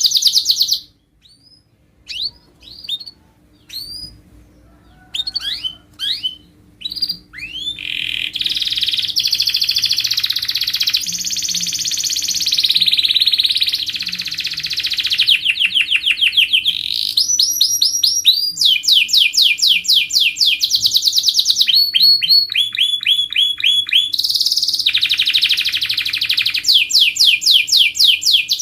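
Domestic canary singing: fast trills of rapidly repeated notes, a short break about a second in, scattered single chirps, then long continuous rolls and trills.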